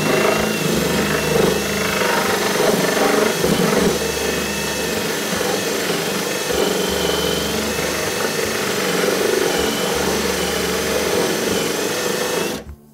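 Power drill running steadily under load, boring into wood for a door hinge; it cuts off abruptly near the end.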